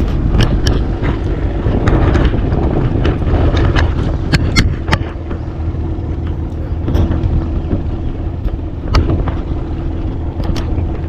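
A small fishing boat's motor running steadily, with a low rumble and a faint steady hum. Frequent sharp knocks and clicks run over it.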